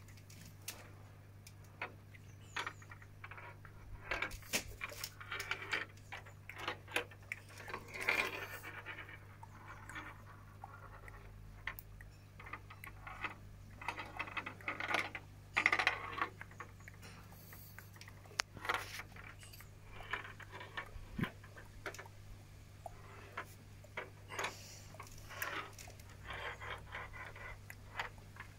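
Steel ball rolling, clicking and rattling along the plastic tracks inside a Perplexus Rebel maze sphere as it is turned in the hands: irregular sharp clicks and short rattles, with plastic handling noise.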